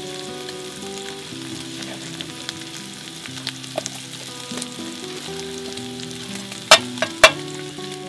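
Marinated meat sizzling steadily in a frying pan on a portable gas stove. Two sharp clicks about half a second apart near the end are the loudest sounds.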